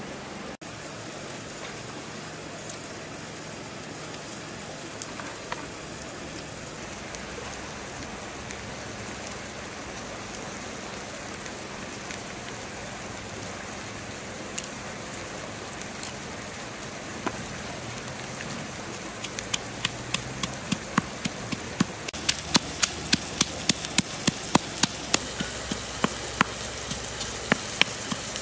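A steady low hiss with a few scattered small clicks. About two-thirds of the way through, a run of sharp crackling pops begins and soon turns dense and fast: grubs spattering as they fry in hot oil in a pan over a wood fire.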